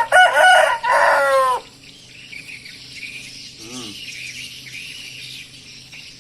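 A chicken's loud call, about a second and a half long in two parts, its pitch falling at the end, then a short faint call a couple of seconds later.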